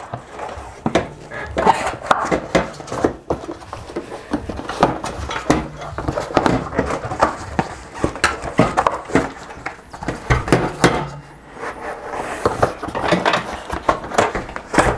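Red foam puncture-protection insert (Tannus Armour) being pushed by hand into a fat e-bike tire on its spoked wheel: irregular rubbing and scuffing of foam against tire rubber, with many light clicks and knocks.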